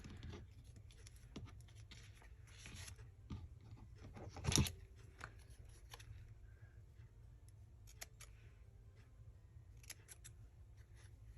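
Paper being handled on a craft table: light rustling with scattered small clicks and taps, and a louder rustle or knock about four and a half seconds in.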